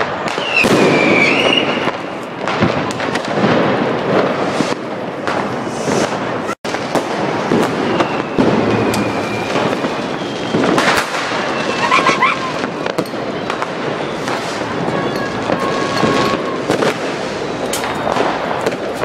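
New Year's Eve street fireworks: firecrackers and rockets banging off in quick, irregular succession, with a few whistling tones from rockets in flight.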